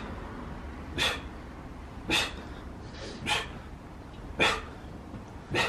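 A man breathing out hard in short, sharp bursts, about one a second, five times, one forced breath for each rep of weighted dips under strain.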